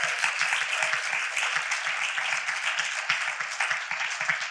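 Audience applauding: the dense, steady clapping of many hands.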